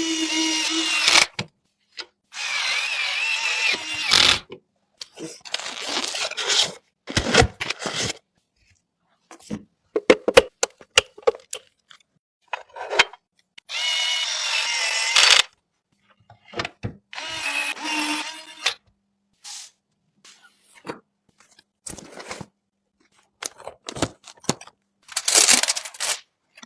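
Small electric screwdriver whirring in short bursts of a second or two, driving screws during a PC assembly. Between the bursts come sharp clicks and snaps of parts being fitted.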